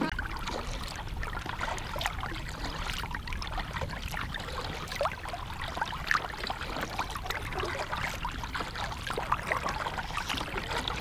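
Water splashing and trickling around a moving kayak's hull and paddle, with many small irregular drips and splashes over a steady low rumble.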